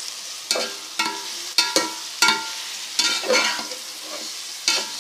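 Chicken and vegetables frying in ghee in a degchi (cooking pot) being stirred with a spoon: a steady sizzle under about eight scrapes and knocks at uneven intervals, each leaving the pot ringing briefly.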